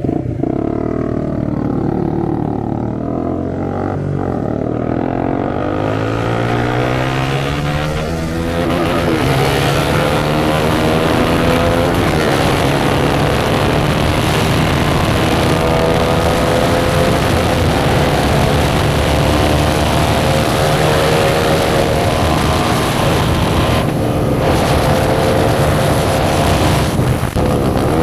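Motorcycle engine with its exhaust removed, revving up through the gears in rising steps for the first several seconds, then running hard at high revs. Wind rushes throughout, with two short dips in the engine note near the end, as at gear changes.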